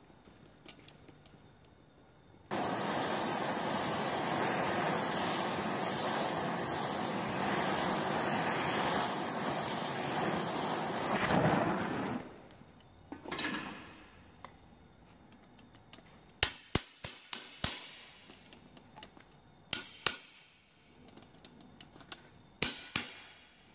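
Oxy torch flame hissing steadily for about ten seconds, then shut off suddenly. Later come several sharp metallic knocks, each ringing briefly.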